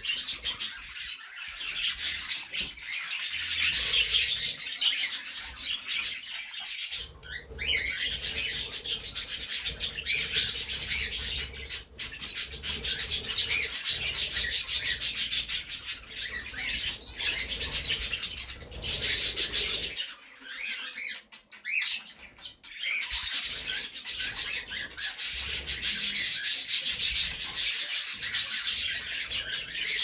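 Flock of budgerigars chattering: a dense run of many short, high chirps and warbles, easing off briefly about two-thirds of the way through before picking up again.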